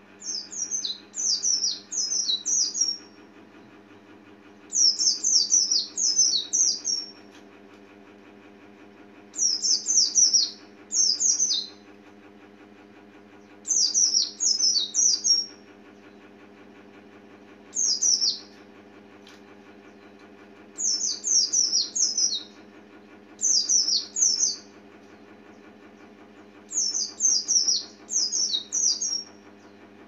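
Oriental white-eye singing: short bursts of three to five quick, high, down-slurred chirps, repeated every few seconds, over a steady low hum.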